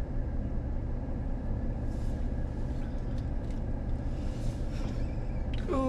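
Steady low hum of an idling car heard from inside its cabin, with a few faint soft clicks and rustles near the middle.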